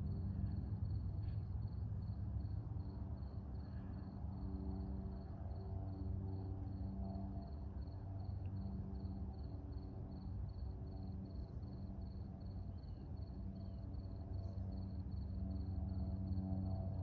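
Breeze rumbling on the microphone, with an insect, likely a cricket, chirping in an even high pulse about three times a second throughout. A low droning hum fades in and out underneath.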